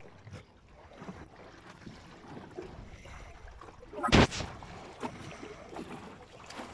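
Water lapping and splashing against the hull of a small sailing boat under way, with scattered small knocks. A little past halfway comes one loud, brief rush of noise, the loudest moment.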